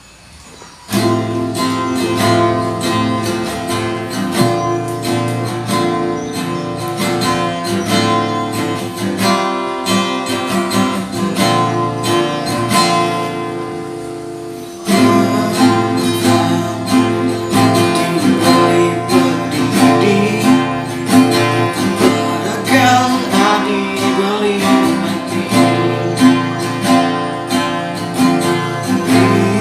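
Instrumental song intro led by strummed acoustic guitar with a band behind it. It starts about a second in, eases off to a short break around the middle, then comes back in fuller.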